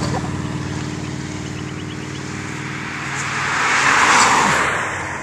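Cars driving past on a road: one car's engine hum fades away, then another passes with tyre and road noise swelling and falling away, loudest about four seconds in.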